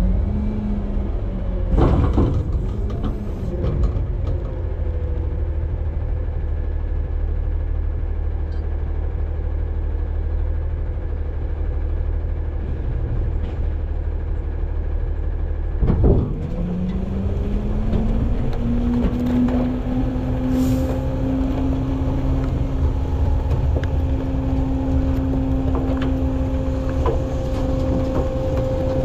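Front-load garbage truck's engine running, heard from inside the hopper, with a loud clank about two seconds in and another about halfway through. After the second clank the engine revs up and holds at a higher, steady speed.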